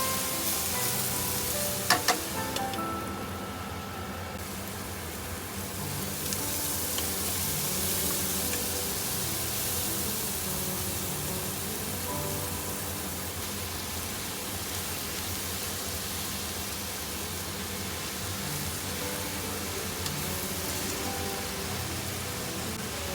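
Food sizzling in a frying pan, a steady hiss, with two or three sharp clicks of a utensil about two seconds in, under background music.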